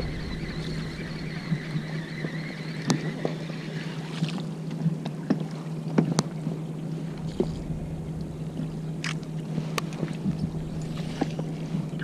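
Baitcasting reel being cranked, a steady gear whine for about the first three and a half seconds that then stops, followed by several sharp clicks and knocks as the line and the caught webfoot octopus are handled. A steady low hum of the boat runs underneath.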